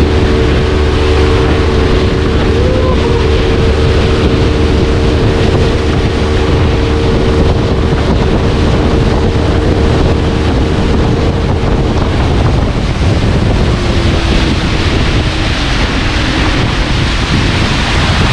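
A small tour boat's motor running steadily under heavy wind noise on the microphone, with water rushing past the hull. The motor's steady hum fades about two-thirds of the way through.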